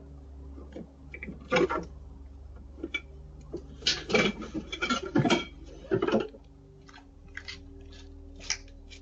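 A run of clattering knocks and scrapes, as of objects being handled, loudest from about four to six seconds in, over a steady low hum.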